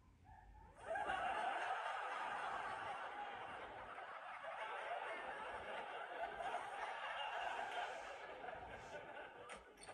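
Studio audience laughing, a sudden swell about a second in that carries on for several seconds and slowly dies away near the end. Played from a tablet and re-recorded off the screen.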